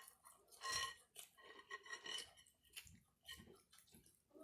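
Faint, close-up sounds of a person eating: short wet chewing and mouth clicks, the loudest a little under a second in, with smaller ones every half second or so.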